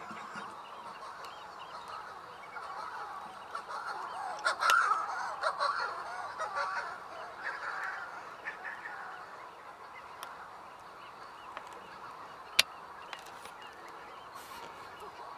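Manx shearwaters calling at night in their breeding colony, many harsh overlapping calls at once, loudest about four to seven seconds in. A single sharp click about twelve seconds in.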